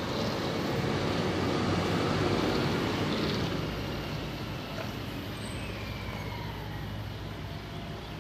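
Diesel multiple unit's engines running as the train pulls away, the sound fading from about halfway through as it draws off into the distance.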